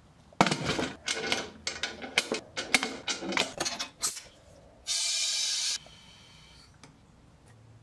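Metal lid set onto a steel resin pressure pot and its clamps worked, a quick run of metal clanks and scrapes. About five seconds in comes one short, loud hiss of compressed air, just under a second long, as the air line is coupled to the pot.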